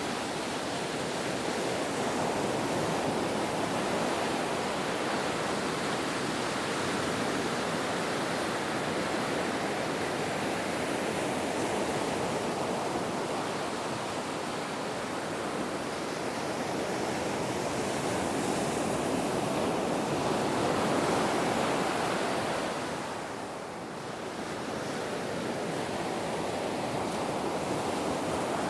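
Ocean surf: a continuous wash of breaking waves that swells and eases slowly, with a brief lull about three-quarters of the way through.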